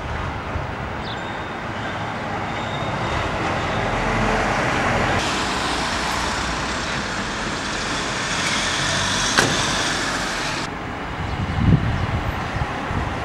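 Road traffic: the steady rush of vehicles passing on a street, swelling and easing, with the sound changing abruptly twice. A few low bumps near the end.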